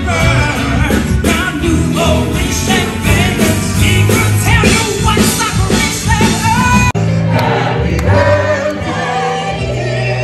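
Live amplified stage performance: a singer sings into a microphone over loud musical backing. The sound breaks off abruptly about seven seconds in and picks up again on another stretch of music with singing.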